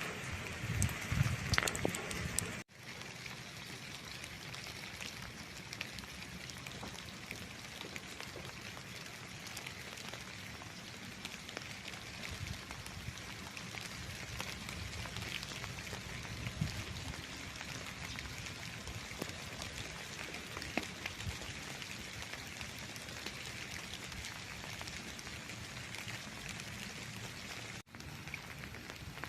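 Steady rain falling, an even hiss made of many fine drop ticks, after some louder low thuds in the first few seconds.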